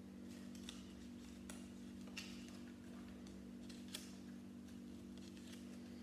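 A few faint clicks and rustles of small plastic Lego pieces and a paper instruction booklet being handled, over a steady low hum.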